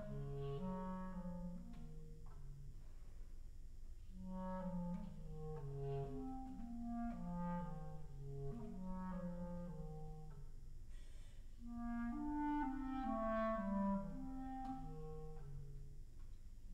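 Unaccompanied clarinet in A playing a slow, soft, winding melody of held notes low in the instrument's range, with a short break about eleven seconds in.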